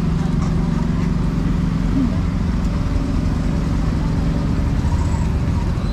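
Busy street-market ambience: a steady low hum of motor traffic with people talking in the background.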